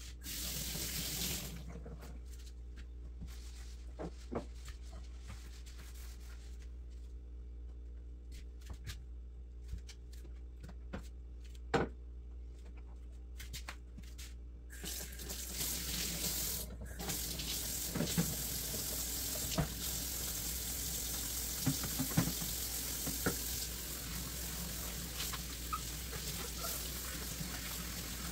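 Hand-washing dishes at a stainless steel kitchen sink: a brief rush from the faucet at the start, then a quieter stretch of scattered clinks and knocks of dishes. About halfway through the faucet is turned on and runs steadily while a plastic container is rinsed under it, with dishes clinking now and then.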